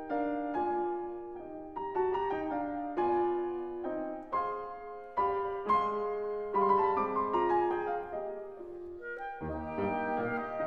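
Background music led by piano: a melody of struck notes, each fading away. Near the end held lower notes from another instrument join in.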